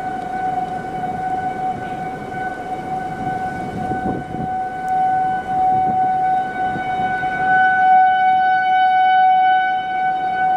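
Outdoor tornado warning siren sounding a steady tone, swelling louder about two-thirds of the way through, over a rough background rush of noise.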